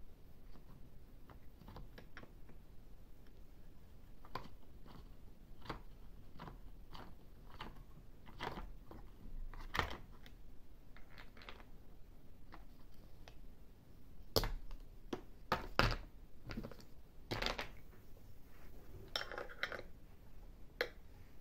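Hard plastic parts of a take-apart toy truck clicking and knocking as a small child handles them and works a toy screwdriver. Scattered clicks throughout, with a few louder knocks and a quick run of clicks in the second half.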